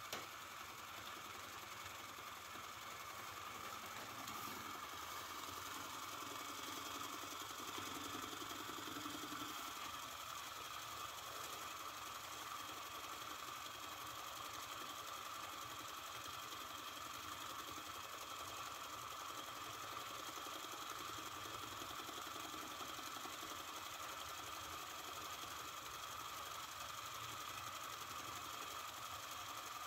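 Small Sterno-fired vertical oscillating toy steam engine running steadily under its own steam, with a fast, even mechanical ticking from the oscillating cylinder and a steady high whistle.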